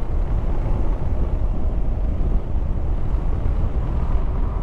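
Riding noise from a Hero Xpulse 200 motorcycle at speed: a steady wind rumble on the microphone over the running single-cylinder engine.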